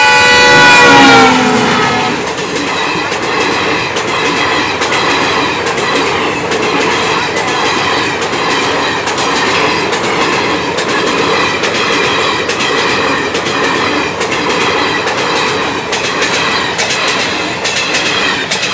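Locomotive horn of the Garib Rath Express sounding as it reaches the level crossing, its pitch dropping about a second in as it passes. Then the train's coaches go by close at speed in a loud, steady rush of wheel and rail noise with a rhythmic clickety-clack.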